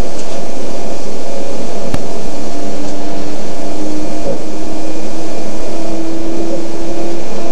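Steady running noise inside a Joetsu Shinkansen car, with a motor whine that climbs slowly in pitch from about two and a half seconds in. There is a single click at about two seconds.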